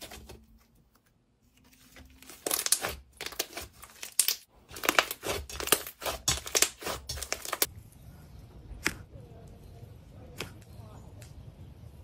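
Soft pink clay slime squeezed and folded by hand, crackling and popping in quick, dense clicks starting about two and a half seconds in and stopping sharply near eight seconds. After that comes a faint hiss with a few scattered clicks.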